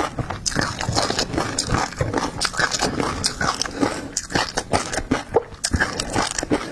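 Close-miked eating of seafood: wet chewing, biting and smacking, with many short crunches and clicks.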